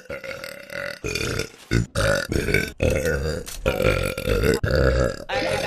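A girl burping repeatedly: a run of rough burps, one straight after another, each under a second long.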